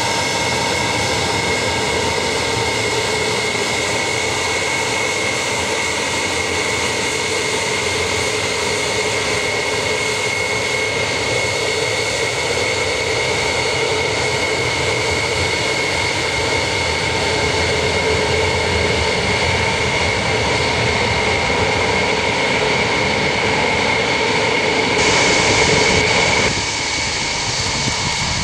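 Four Soloviev D-30KP turbofans of an Ilyushin Il-76TD running at taxi power: a steady roar with a high whine and a lower hum over it. Near the end the high whine grows brighter, then the lower hum drops away.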